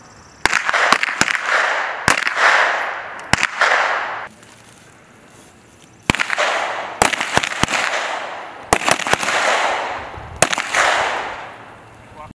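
M17 9mm pistols firing on an outdoor range: irregular strings of sharp shots, some in quick pairs, each shot followed by a long echo. A lull of about two seconds falls near the middle before the firing resumes.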